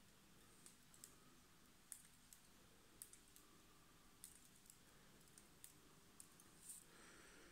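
Near silence with about a dozen faint, irregular, sharp little clicks from fingers winding whipping thread around a small float.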